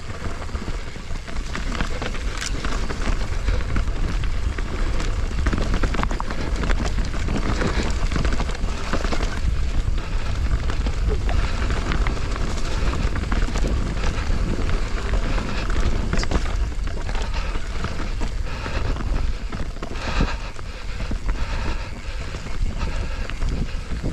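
Mountain bike rolling fast downhill on a dirt and grass trail: a steady low rush of wind on an action camera's microphone with tyre noise, and many short knocks and rattles from the bike over bumps.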